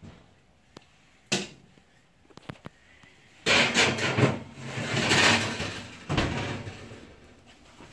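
Kitchen handling sounds: a sharp knock, a few light clicks, then a few seconds of loud clattering and scraping, with another knock that fades away near the end.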